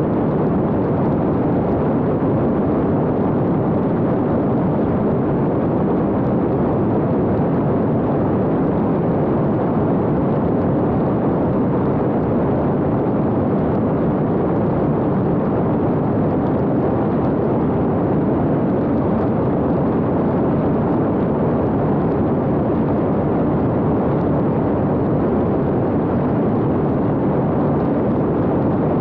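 Steady rush of airflow and propeller noise from the drone's own onboard camera microphone, with the small fixed-wing X-UAV Talon UAV in level cruise flight.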